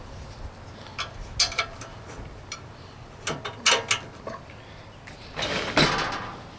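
Handling of a hand-built model logging truck: scattered light clicks and knocks, then a longer scraping rustle about five and a half seconds in.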